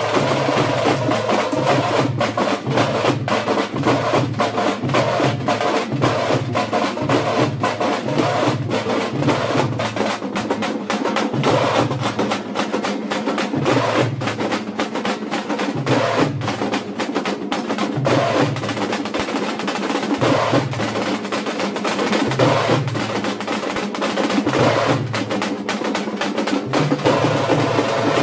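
A troupe of thamate frame drums beaten fast with sticks, many drummers together in a dense, driving rhythm, with a deeper beat pulsing about once a second.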